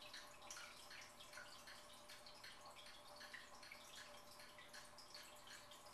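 Fish tank water trickling and dripping faintly in many small, irregular splashes, over a faint steady hum.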